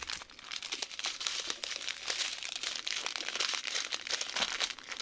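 Small plastic zip bags of diamond-painting drills being handled and stacked, the plastic crinkling and rustling in a dense run of small clicks.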